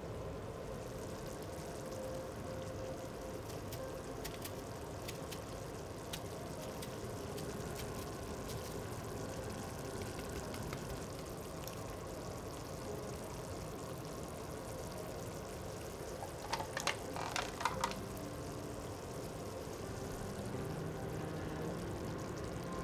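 Tomato sauce simmering in a frying pan, a steady bubbling hiss, with light scraping ticks from a lemon being zested on a fine grater and a quick run of sharp taps about seventeen seconds in.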